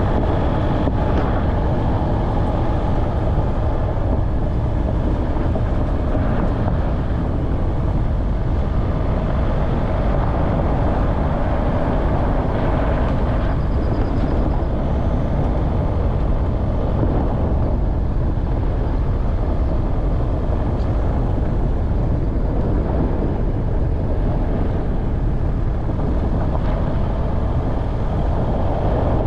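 Off-road vehicle driving on a mountain track: the engine and running noise go on steadily throughout, with no sharp changes.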